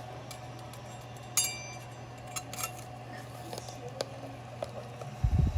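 Serving utensil clinking against a baking dish with a short ring about a second and a half in, then lighter scrapes and clicks while the baked enchiladas are cut and lifted out, and a few low thumps near the end over a steady low hum.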